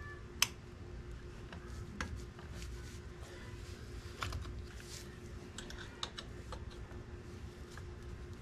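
Scattered light metallic clicks and taps of parts being handled and fitted at a scooter's front disc-brake caliper, the sharpest click about half a second in.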